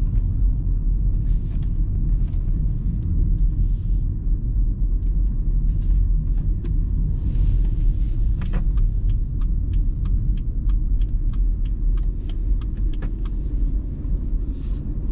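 Inside the cabin of a BMW 1 Series (F20) driving slowly: a steady low rumble of engine and road. In the second half comes a run of light, evenly spaced ticks, about three a second.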